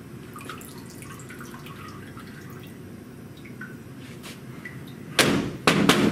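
Black plastic cover of a darkroom processing sink being lowered shut: two loud clattering knocks, one after the other, near the end. Before them, faint light ticks as the paper is handled.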